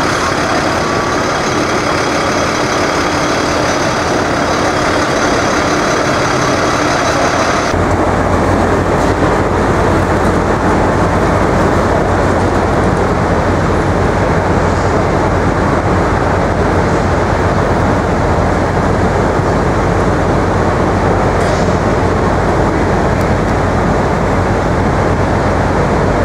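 Steady city street traffic noise. For the first eight seconds a high whine of several steady tones rides over it, then the tones stop abruptly and a heavier low rumble takes over.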